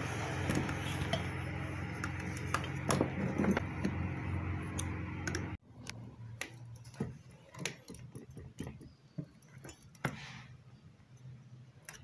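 Light metallic clicks and clinks of a wrench working the nut that holds a blender motor's cooling fan on its shaft, with the fan held still by a rag. A steady low hum underneath cuts off abruptly about halfway through.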